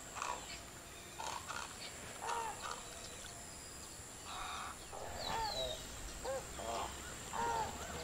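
Birds calling: a run of short, arched, honking calls, several each second and more frequent in the second half, with a couple of thin, high, falling whistles around the middle.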